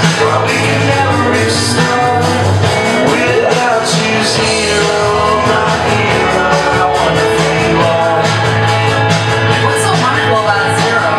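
Loud, continuous song: band music with a singing voice over it.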